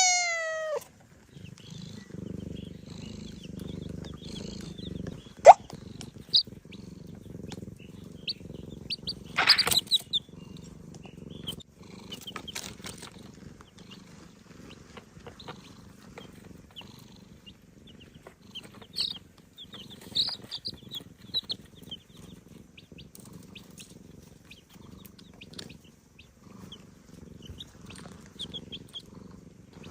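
A domestic cat purring steadily with a low, rhythmic rumble, while chicks give short, soft peeps every now and then.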